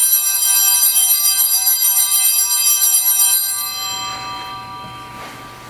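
Altar bells ringing at the elevation of the chalice after the consecration, marking the moment for the congregation. The bright ringing goes on for about three and a half seconds, then dies away over the next two.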